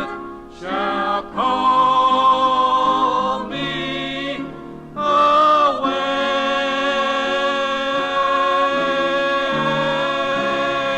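Gospel vocal group singing the final words of the song's refrain, with short phrases in the first few seconds and then a long held closing chord from about six seconds in.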